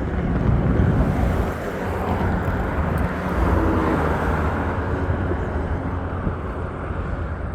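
Wind rumbling on the microphone over the road noise of a Bird electric scooter being ridden.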